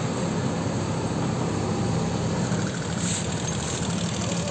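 JCB 4DX backhoe loader's diesel engine running steadily at a low, even pitch, with one short sharp click near the end.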